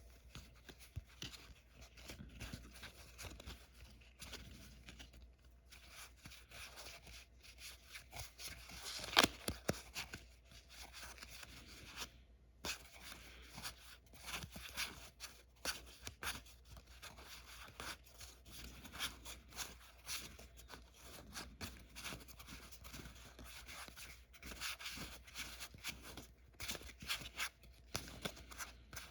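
Trading cards handled and flipped through by hand: faint rustling and light card-on-card clicks throughout, with one louder click about nine seconds in.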